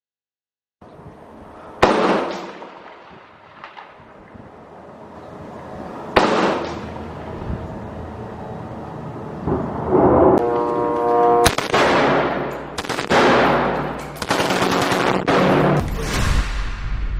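Gunfire: two single loud reports about two and six seconds in, each echoing away, then dense bursts of automatic fire through the second half.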